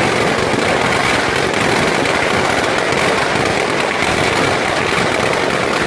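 Firecrackers packed inside a burning Ravana effigy going off in a dense, continuous crackle.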